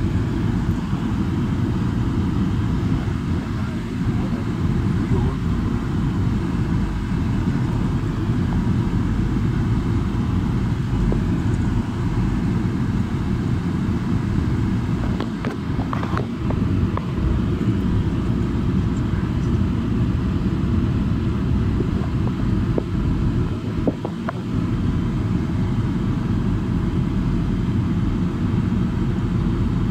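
Car cabin noise from a car driving slowly over a gravel track: a steady low rumble of engine and tyres, with a few small clicks.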